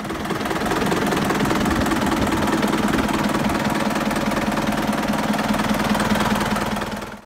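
Four-cylinder air-cooled Deutz diesel engine running steadily, with a fast, even diesel clatter. It fades out near the end.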